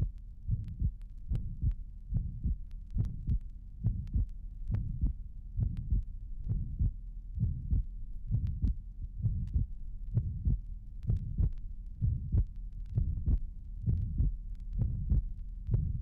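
Heart sounds of an atrial septal defect, recorded through a stethoscope over the second intercostal space at the left edge of the sternum. A regular heartbeat, about one beat every 0.8 s, with a soft systolic murmur and a split second heart sound.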